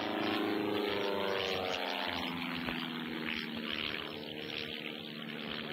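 Cap 21 aerobatic plane's piston engine and propeller droning as it flies past. Its pitch falls as it passes, and it eases off toward the end.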